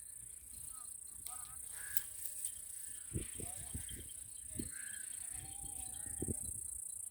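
Steady high-pitched chorus of crickets, with a few short faint chirps and several low knocks in the middle.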